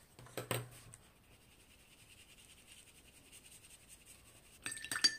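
A water-tank brush scrubbing softly over watercolour paper, blending a fresh marker swatch with water: a faint, steady scratchy brushing. A soft knock comes just after the start, and a quick cluster of light clicks near the end.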